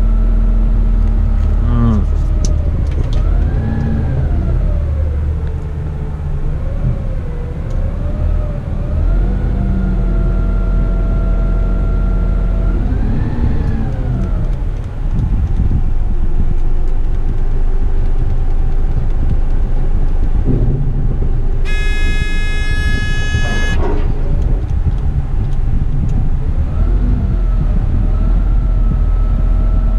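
Front-loader rubbish truck's engine and hydraulics, heard from inside the cab, revving up and down in pitch again and again as the forks and lifting arms are worked, then running on steadily. About 22 seconds in, a loud two-second tone cuts in and out sharply.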